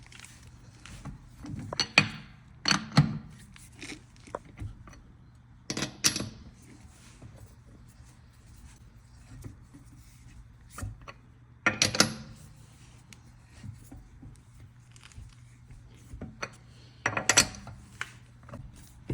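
Lug nuts and a hand wrench clinking and clattering on a wheel as it is refitted and tightened: a few short metallic knocks and rattles spaced several seconds apart, over a faint steady low hum.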